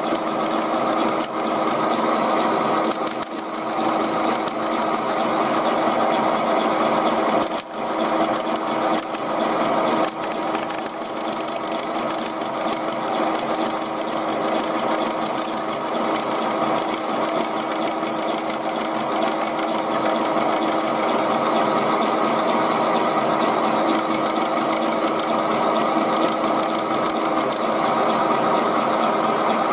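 Home-built milling machine running steadily, its washing-machine motor turning an end mill that cuts around the thin tin wall of a fish can, making a continuous grinding whir. The sound dips briefly about eight seconds in.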